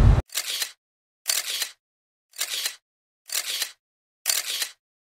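Camera shutter sound effect repeated about once a second, five times, each a sharp click with a short rasp after it.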